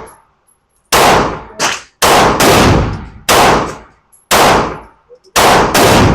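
Smith & Wesson M&P 2.0 Metal pistol firing a string of about eight shots at an uneven pace, some in quick pairs, each crack followed by a short fading echo.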